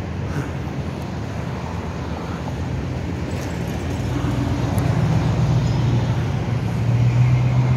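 Street traffic: road noise with a vehicle engine's low hum that grows louder over the second half.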